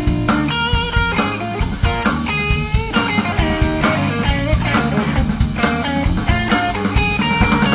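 Blues band playing live: a guitar carries held, bending notes over a steady drum beat and bass.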